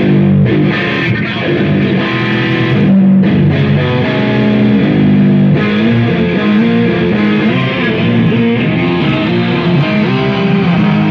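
Electric guitar played in a tone check, moving through a run of held and changing notes that go on without a break.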